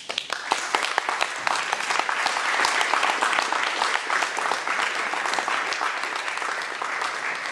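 Audience applauding, a dense patter of many hands clapping that begins at once and keeps up steadily.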